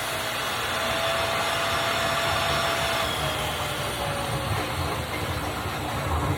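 Household vacuum cleaner running steadily while sucking standing water out of a dishwasher that won't drain. Its motor note sags a little about three seconds in.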